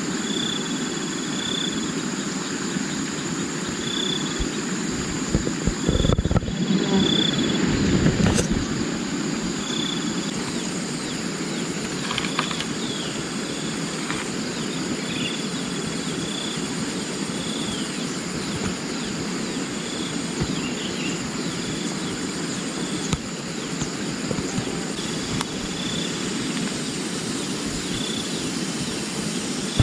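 Forest insects calling steadily: a high continuous buzz with a short high chirp repeating every second or two, over a low steady rush. A louder low rumble comes through briefly about six to eight seconds in.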